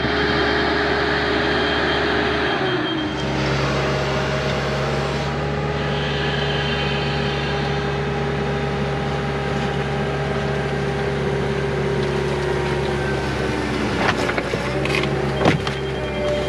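Excavator's diesel engine running steadily with a hydraulic whine as the bucket digs out the mud, the engine note dropping and settling about three seconds in. A few sharp knocks sound near the end, the loudest a second or so before it finishes.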